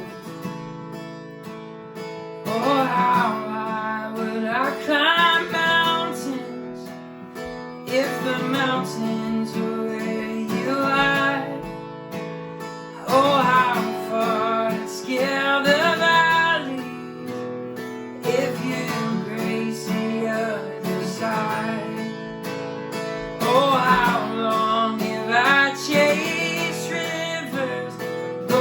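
Instrumental worship-band music with acoustic guitar strumming over sustained chords, and a melodic line that rises and falls in phrases every few seconds.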